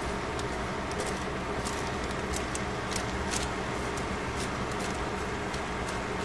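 Cabbage, carrot and onion sizzling on a hot foil-lined pan: a steady hiss with frequent small crackles and pops.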